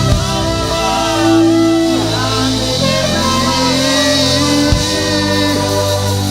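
Church worship music: a band holds sustained chords while a voice sings or chants above them.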